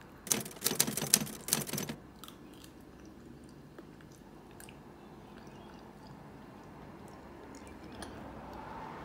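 Metal spoon scooping into thick ube halaya in a plastic tub: a quick run of clicks and scrapes for about a second and a half near the start, then only faint scattered clicks.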